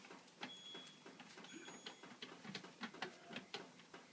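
Washing machine control-panel buttons clicking faintly as they are pressed one after another, with two short high beeps from the panel, while the child lock is engaged.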